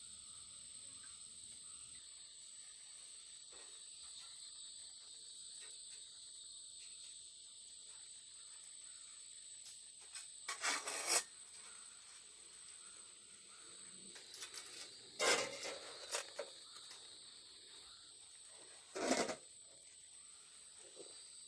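Steady high drone of insects chirring in the forest, with three short, louder rasping, rubbing noises: one about halfway through, a longer cluster a few seconds later, and a brief one near the end.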